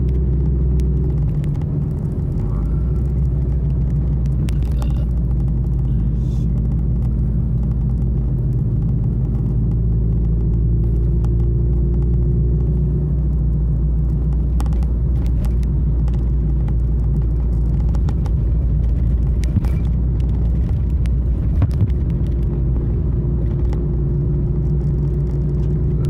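Car's engine hum and tyre rumble heard inside the cabin while driving, steady and low, with the engine note shifting pitch a few times as the speed changes.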